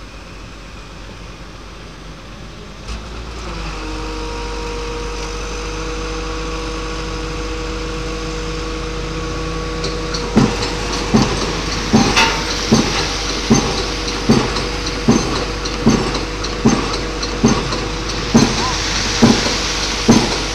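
Piling rig's engine running, getting louder and steadier about three seconds in. From about ten seconds in, a 5-tonne hydraulic impact hammer strikes a square concrete pile in a steady rhythm of about one heavy blow every 0.8 seconds.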